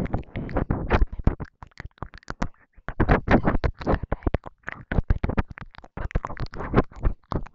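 ASMR mouth sounds close to the microphone: quick, irregular wet clicks and smacks of tongue, lips and saliva, many to the second.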